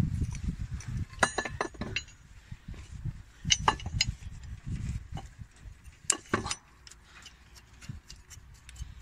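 Metal clinking and light knocks as a replacement fan clutch is fitted by hand onto the fan drive hub of an Iveco truck diesel engine, in three short clusters a couple of seconds apart, with low rubbing and handling noise at first.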